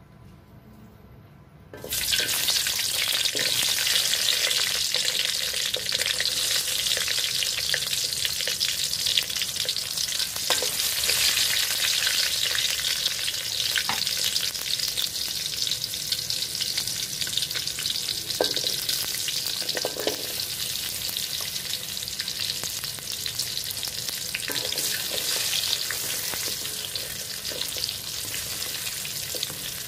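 Tomato wedges, red chillies and shallots frying in hot oil in an aluminium wok: a sudden sizzle about two seconds in as they hit the oil, then steady crackling sizzle, with a spoon stirring and scraping the pan now and then.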